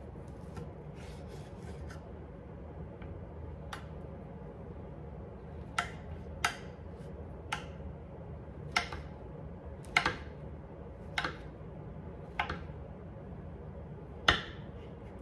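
A chef's knife slicing through summer sausage and striking a hard cutting board, a sharp click with each cut: a few faint ones at first, then about nine louder ones at an uneven pace of roughly one a second, the loudest near the end. A steady low hum runs underneath.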